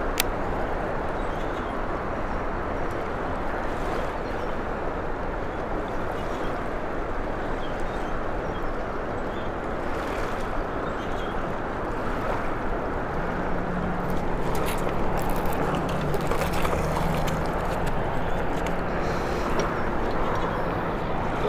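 Steady rushing noise of a boat moving over the water. A low, steady motor hum joins about two-thirds of the way in, with a few faint clicks.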